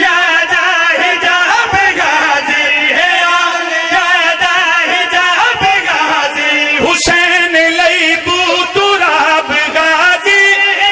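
Several men chanting a devotional qaseeda refrain together into microphones, with sustained, wavering sung lines throughout. A single sharp click cuts through about seven seconds in.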